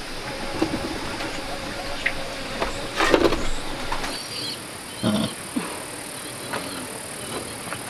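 Steady high drone of insects, with scattered knocks and short sounds from pigs moving in a bamboo-slatted pen and the bamboo rails being handled; the loudest knocks come about three seconds in.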